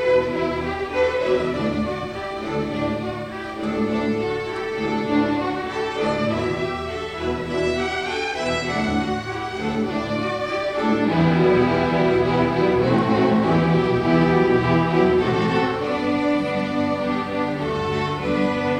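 A high school string orchestra playing live, violins over cellos in dense, held chords. The music grows louder and fuller about eleven seconds in.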